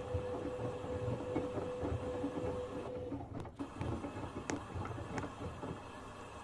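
Beko Slim 7 kg washing machine running with a dense, irregular knocking and rattling and occasional sharp clicks. A steady hum runs under it and cuts off about three seconds in.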